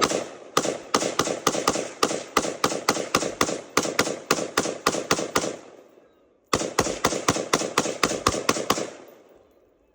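ATI 5.56/.223 AR pistol fitted with a flash can, fired semi-automatically in rapid strings of about five shots a second: one long string, a pause of about a second, then a shorter second string.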